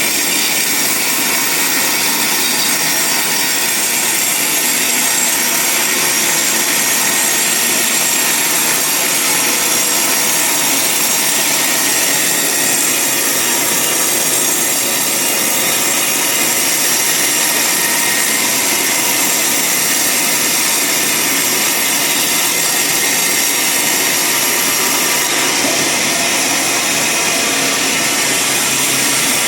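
Band sawmill cutting through a large log: the blade and machine run with a loud, steady noise and a high whine, without a break.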